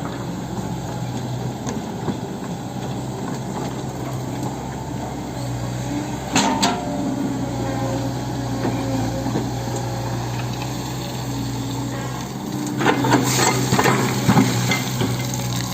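Hitachi 110 M excavator's diesel engine running steadily under work, with sharp metallic clanks about six seconds in and a cluster of clanks near the end.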